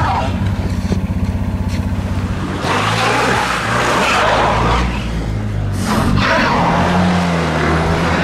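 Fiat 500 stuck in snow, its engine held at revs while the front wheels spin without grip. A rapid fluttering in the first couple of seconds gives way to a louder hiss of the tyres churning the snow.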